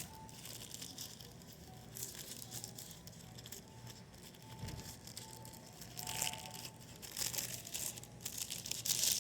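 A baseball card pack's wrapper being crinkled and torn open by hand, in irregular rustling strokes that get louder in the last few seconds. Faint short beeps and a low hum sit underneath.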